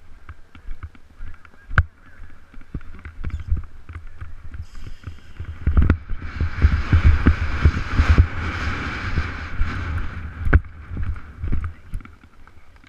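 Horse galloping with thudding hoofbeats, and wind buffeting the rider's action-camera microphone. A louder stretch of rushing noise runs from about six to ten seconds in.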